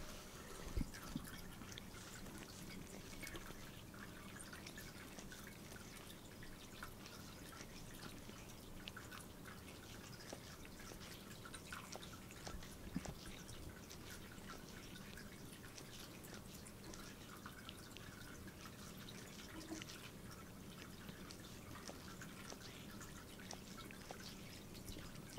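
Cat grooming itself, its tongue licking the fur of its foreleg in many faint, quick wet clicks and smacks.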